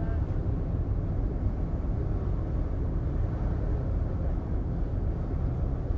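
Steady low rumble on the open deck of the car ferry Ritsurin 2 under way: wind buffeting the microphone over the ship's engine and water noise.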